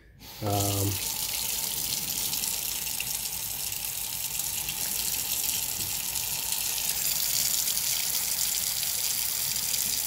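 Water running steadily from a Moen kitchen faucet into a stainless steel sink, starting about half a second in. The faucet is being test-run after its cartridge hold-down nut was tightened to stop a drip.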